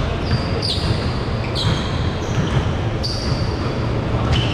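Basketball pickup game on a hardwood court: the ball dribbling and players' feet thudding, echoing in a large gym. High-pitched sneaker squeaks come in sharply several times, about a second apart.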